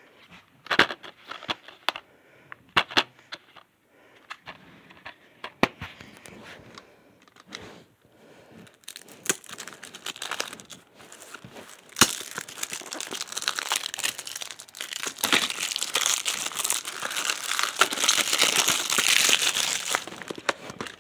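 Plastic DVD and CD cases being handled, with scattered clicks and taps. From about nine seconds in comes a long, loud stretch of crinkling plastic wrapping.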